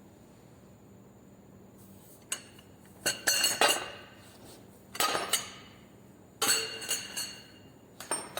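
Metal hand tools clinking and tapping against metal engine parts in five short clusters of sharp, ringing clinks, starting about two seconds in.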